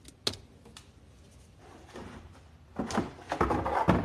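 A sharp snip of side cutters cutting a zip tie on a wiring loom, with a smaller click just after. In the second half, loud rustling and knocking of handling as things are moved about.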